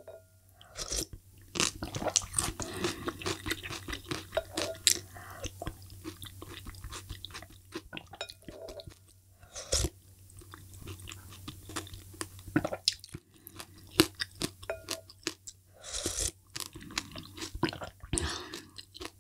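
Close-miked eating sounds: chewing with many short wet clicks, and sips of malatang broth taken from a spoon.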